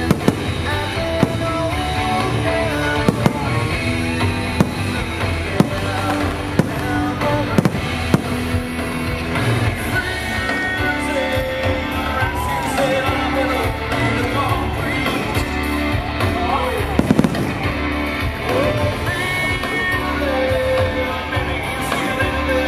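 Rock music soundtrack of a fireworks show playing with the sharp bangs of firework shells bursting over it: several bangs in the first eight seconds and a quick cluster of them about seventeen seconds in.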